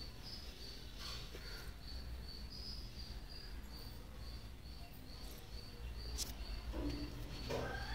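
A cricket chirping steadily, short high chirps about three a second, over a faint low rumble.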